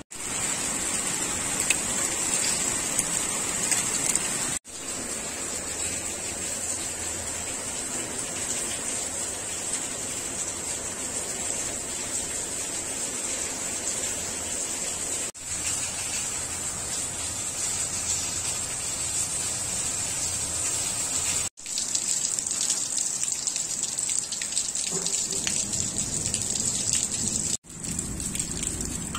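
Heavy rain falling steadily, heard as several short clips joined with abrupt cuts between them.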